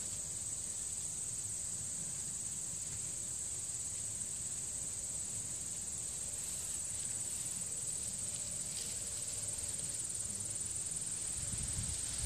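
Crickets chirring in a steady, unbroken high-pitched trill. A low rumble swells near the end.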